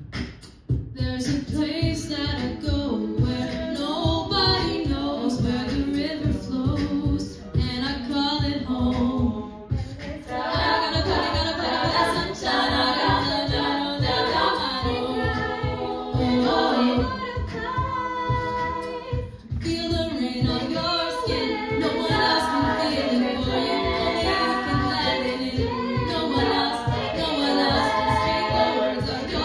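A cappella group singing: mostly female voices in harmony over a vocal-percussion beat, with short breaks in the texture about ten and twenty seconds in.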